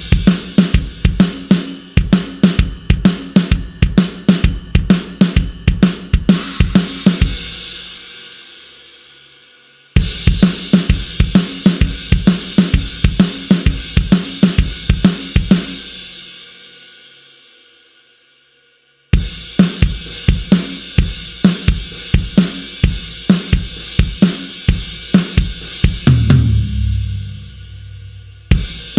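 Sampled acoustic drum kit from the Blasting Room Signature Series Drums library playing grooves of kick, snare, hi-hat and cymbals. There are three separate patterns, each stopping with its cymbals ringing out before the next begins. The third ends in a fill.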